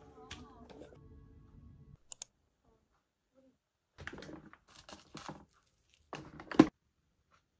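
Light clicking and clattering of small hard objects being handled, in two short bursts separated by a pause; the second burst ends in a sharper knock. Before them a faint held tone fades out.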